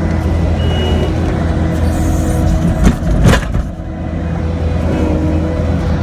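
Kubota SL75-2 tracked skid steer's diesel engine running steadily in the cab, with two sharp loud knocks close together about three seconds in.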